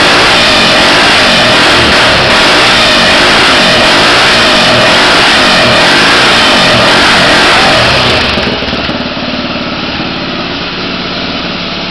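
Honda XLX 350 single-cylinder four-stroke motorcycle engine being revved, very loud, then dropping back to a steady idle about eight seconds in.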